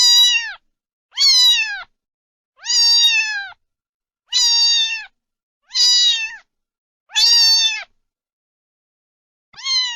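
Domestic cat meowing over and over: about seven fairly high, drawn-out meows roughly every second and a half, each falling in pitch at its end, with a longer pause before the last one.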